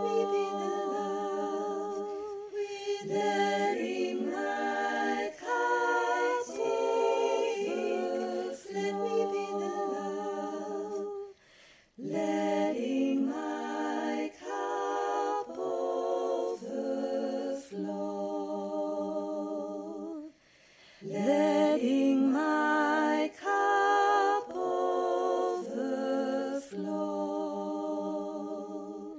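Unaccompanied voices singing a slow, repeating phrase in several-part harmony, held notes stacked on top of one another, with two short pauses for breath partway through.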